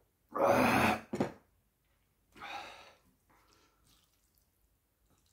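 A man's loud, breathy exhale just after knocking back a shot of soju, followed by a short sharp sound and then a second, softer breath out about two seconds in.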